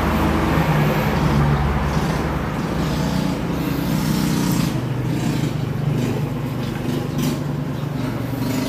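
A steady, low mechanical drone of a motor running, with a few light clicks in the second half.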